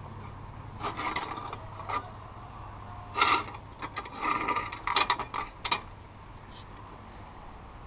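Metal parts scraping and rattling in several short bursts as the throttle linkage is pulled out of a tractor, over a low steady hum.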